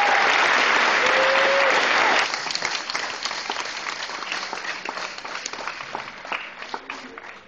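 Audience applauding with a few cheers, a full dense applause that thins at about two seconds in to scattered claps that die away.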